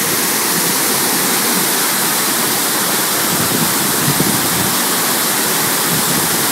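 Large waterfall pouring over a rock face into its plunge pool: a loud, steady rush of falling water.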